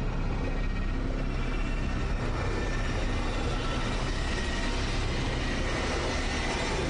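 A steady, dense low rumble that holds at an even level throughout.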